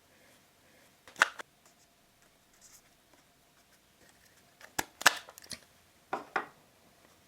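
Handling noises from the watch winder's sprung watch cushions: a few short clicks and scrapes, with a cluster of them around five to six and a half seconds in.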